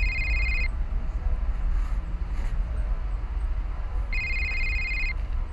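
Mobile phone ringing: an electronic ring of about a second, repeated about four seconds later, over a steady low rumble.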